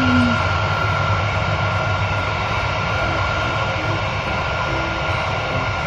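Boeing 747 airliner's jet engines running steadily: a constant rush with a high whine held at one pitch.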